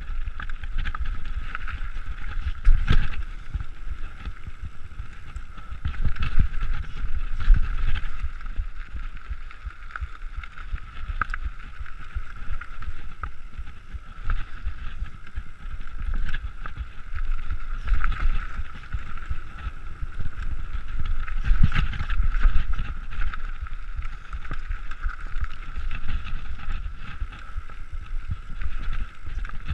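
Nukeproof Mega TR full-suspension mountain bike riding fast down a dirt trail, heard through a GoPro's microphone: a steady rumble of tyres on dirt with the bike rattling and knocking over bumps and roots, a few harder knocks, and wind buffeting the microphone.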